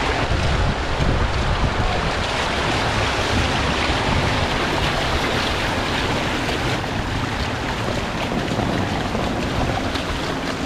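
Heavy typhoon rain and strong wind, with wind buffeting the microphone in a steady low rumble under the hiss of the rain.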